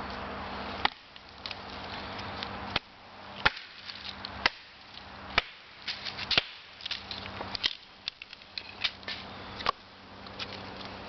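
A Snow & Nealley Hudson Bay axe chopping wood: about eight sharp, separate strikes at uneven intervals of one to two seconds.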